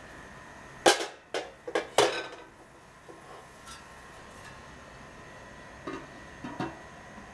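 A metal baking pan is set down on a wire trivet inside an aluminium pot: four sharp clanks with a short ring, about a second in. Near the end an aluminium lid is set on the pot with a few lighter knocks.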